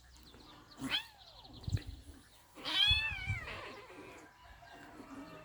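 Cat meowing twice during play with a dog: a short falling cry about a second in, then a longer, wavering cry about three seconds in, with a low thump between them.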